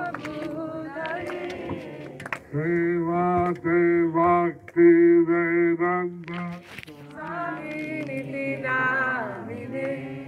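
A man singing a slow Hindu devotional chant solo into a microphone. He holds a string of long notes in the middle, then sings phrases that bend up and down in pitch.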